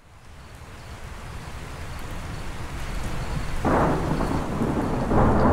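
Thunder rumbling low during a monsoon thunderstorm with rain, fading in, then two sharp cracks of close thunder, one about three and a half seconds in and another near the end, each breaking into a loud crackling rumble.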